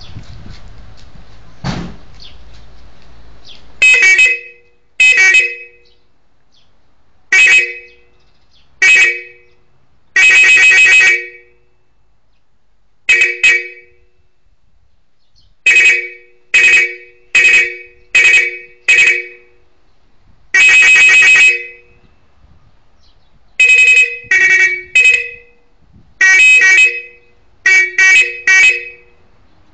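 Bosch two-tone electric car horns sounding in about twenty loud blasts. Most are short and come in quick runs of two to four, and a couple are held for about a second. A single knock comes about two seconds in, before the first blast.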